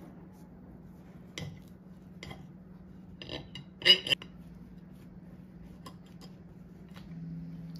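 Metal knife and fork clinking and scraping against a ceramic plate while cutting through a pastry: a few light clinks, then a louder cluster of clinks about three to four seconds in. A steady low hum runs underneath and shifts lower and louder near the end.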